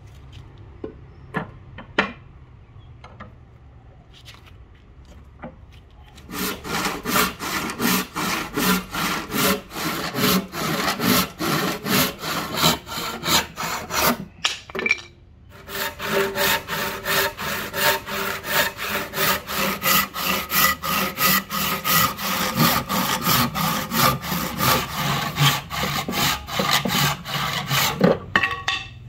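Hand saw cutting through rosewood in even back-and-forth strokes, pausing briefly about halfway. A few sharp knocks come before the sawing starts.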